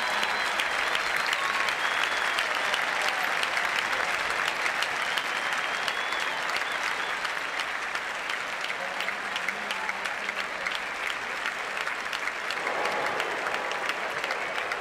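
Large stadium crowd applauding in a long, steady ovation for the winner of a tennis match.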